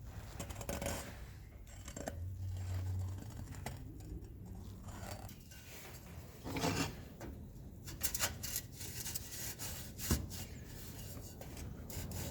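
Hand work on a steel saw blade: irregular scraping and rubbing strokes of varying length, with a sharp knock about ten seconds in.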